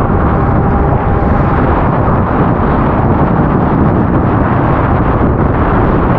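Motorcycle on the move: steady, loud wind buffeting on the microphone mixed with the engine running, without a break.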